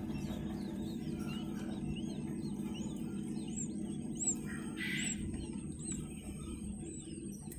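Newly hatched chicks peeping again and again inside an incubator, short high-pitched peeps over the steady low hum of the incubator's fan.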